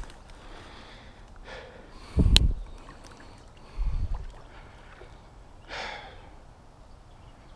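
Handling bumps close to a body-worn camera's microphone: a low thump with a sharp click about two seconds in and a second thump about four seconds in. A couple of breaths close to the mic, over faint steady background.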